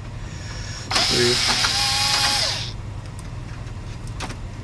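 Cordless electric screwdriver backing a screw out of the printer chassis: the motor winds up, runs for under two seconds, then winds down. A sharp click comes near the end.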